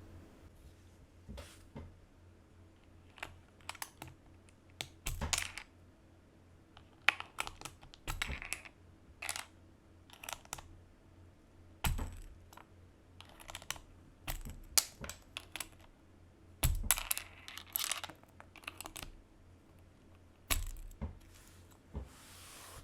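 Typing on a KBD75V2 mechanical keyboard with an aluminum plate, lubed and filmed linear switches and PBT keycaps: irregular keystrokes, some single and some in quick runs.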